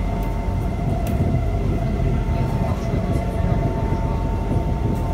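Kawasaki Heavy Industries C151 metro car running between stations, heard from inside the car: a steady low rumble of wheels on rails with a steady whine over it and a few faint clicks.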